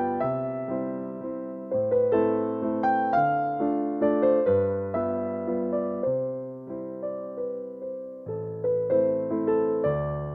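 Background music: a gentle piano piece of repeating broken-chord patterns over sustained bass notes.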